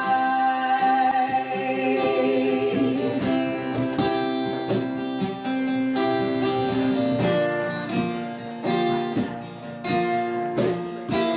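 Live folk-rock band music: acoustic guitar strumming chords, with singing. The opening seconds hold a long sung note before the strummed chords take over.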